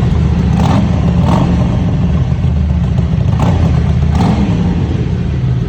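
Harley-Davidson Iron 883's air-cooled V-twin engine running loud and steady, with a few brief sharper sounds on top of the low pitch.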